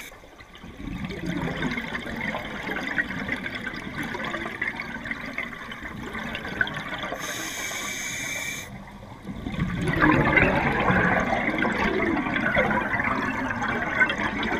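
Underwater water noise heard through a camera's waterproof housing: a steady crackling, bubbling wash that grows louder about ten seconds in.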